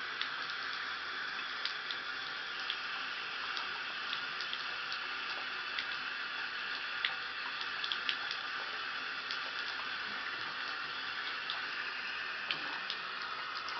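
Water running steadily into a bathtub, with many small drips and splashes scattered over it.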